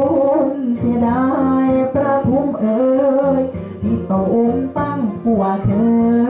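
A hoarse voice singing a Thai lae melody, with long held notes that bend and waver, over steady instrumental backing.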